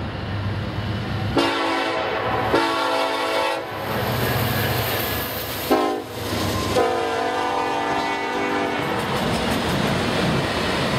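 Norfolk Southern diesel freight locomotive's air horn sounding four blasts, the third short and the last the longest, the grade-crossing signal, as the lead units pass. Under it runs the steady rumble of the diesel engines and the wheels on the rails.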